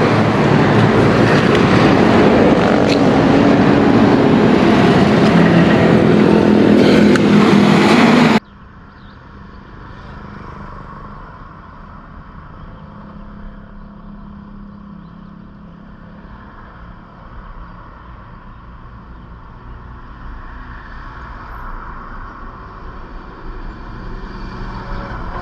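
A vehicle on the move: loud engine and wind noise whose pitch rises and falls, cut off abruptly about eight seconds in. A much quieter, steady engine and road hum follows and slowly grows louder near the end.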